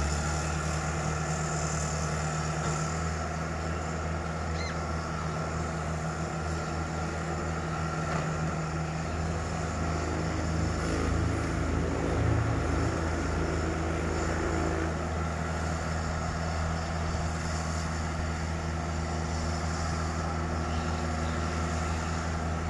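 Heavy excavators' diesel engines running steadily, with a deep, even hum and a brief rise in engine note near the middle while the machines work their booms and arms.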